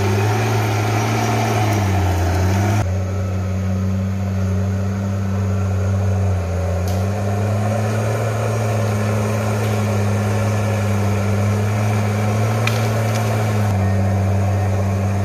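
Crawler tractor's diesel engine running steadily as the bulldozer pushes earth and stumps, its pitch dipping briefly about two seconds in and again around six seconds in as it pulls under load.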